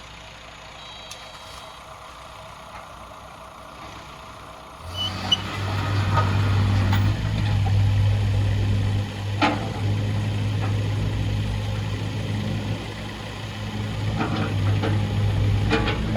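Kubota KX015-4 mini excavator's 3-cylinder Kubota diesel starting about five seconds in, then running steadily, with a few sharp clicks and knocks from the machine.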